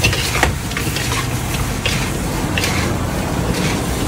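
Metal spatula and wooden spoon scraping and knocking against a large wok as fried banana rolls are tossed in caramel syrup, in several irregular strokes over a steady low hum.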